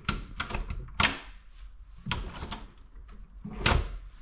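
A string of sharp wooden knocks and clunks as a newly assembled furniture unit is handled, about half a dozen of them, the loudest about a second in and near the end.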